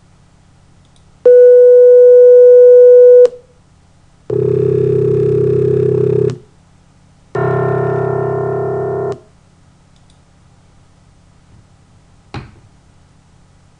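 Three synthesized and recorded tones played in turn, each about two seconds long. First a single steady pure tone, the loudest. Then the sampled low C1 note of a grand piano, dense with partials. Then a sum of pure sine tones built from the sampled partials of that piano note. A short click comes near the end.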